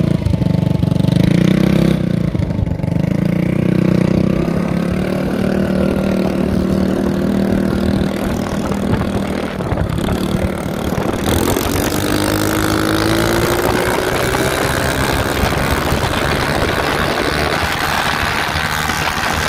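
Mini bike's small engine running, steady at first. About halfway through the revs climb as it accelerates, and a rushing hiss joins it from then on.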